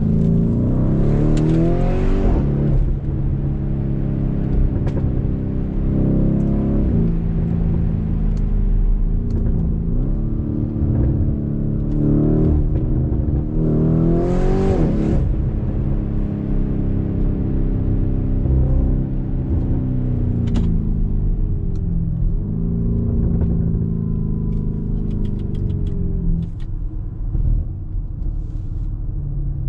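Twin-turbo V8 performance SUV accelerating hard, the engine note climbing through each gear and dropping at each upshift, several shifts in a row. Near the end the engine note falls away as the throttle eases off.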